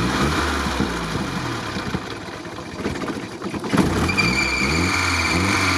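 Petrol engine running unevenly, dropping off in the middle and picking up again about four seconds in, with a thin whine joining near the end. The engine is short of fuel, which the owners put down to a blocked fuel line or a fuel pump that isn't pumping.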